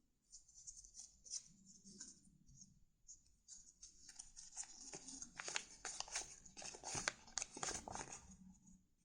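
Faint, crisp rustling and crinkling of paper being handled, with many small clicks. It is sparse at first, grows denser and busier in the second half, and stops shortly before the end.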